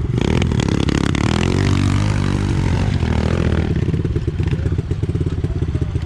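Small single-cylinder pit bike engine revving up and down, then running at a steady lower speed with its firing pulses plainly audible.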